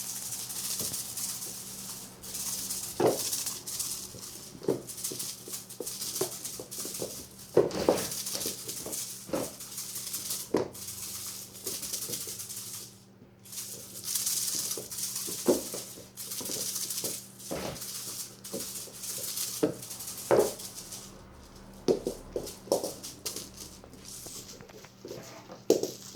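Repeated rustling and rattling bursts with scattered light knocks, over a steady low hum; the source is not named.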